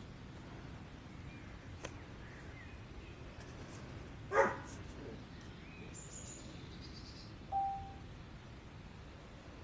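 A corgi barks once, about four and a half seconds in. About three seconds later comes a short single steady note, with faint high bird-like chirps in between.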